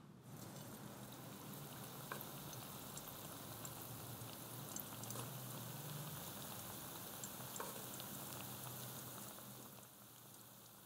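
Balls of shrimp paste wrapped in strips of spring-roll wrapper deep-frying in a pan of oil: a steady sizzle with a few sharp pops, growing quieter near the end.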